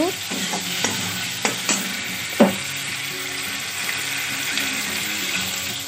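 Turmeric with mustard seeds, bay leaf and dried red chillies sizzling in hot mustard oil in a kadai, while a metal spatula stirs and scrapes them. The spatula knocks against the pan a few times, loudest about two and a half seconds in.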